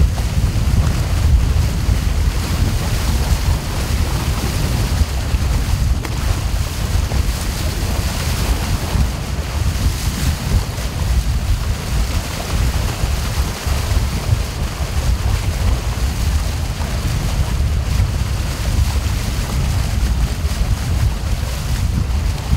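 Water rushing and splashing along the hull of a moving river boat, with wind buffeting the microphone in a steady low rumble.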